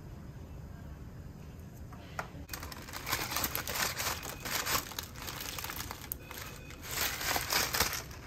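Plastic crinkling as gloved hands handle a TPN IV bag and its tubing. It starts about two and a half seconds in and comes in two bouts.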